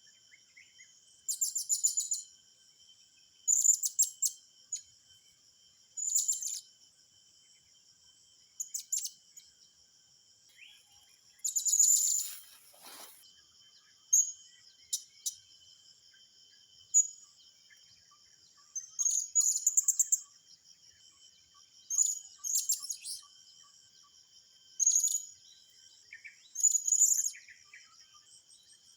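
A small bird's high, thin chirps in short bursts every two to three seconds, over a faint steady high-pitched insect drone.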